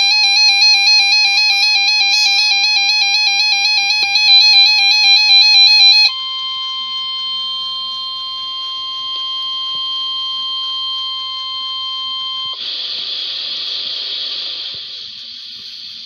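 Weather alert radios receiving a Required Weekly Test. A warbling electronic alert alarm sounds for about six seconds, then a steady single high tone for about six more, then static hiss from the radio speaker.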